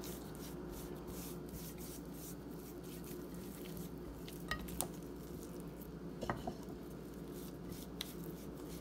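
Faint rubbing and squishing of hands working a spice rub into a raw chuck roast in a ceramic baking dish, over a steady low room hum, with a few light clicks past the middle.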